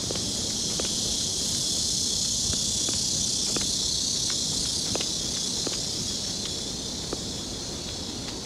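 Footsteps on a wet city street, light regular steps about one every 0.7 seconds, over a steady high hiss that swells for a few seconds in the middle.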